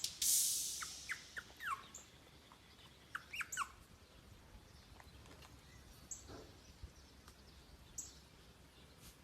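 A small animal giving short, high, falling squeaks or chirps, a few at a time, after a burst of noise that fades out in the first second or so; a few sharp ticks follow later.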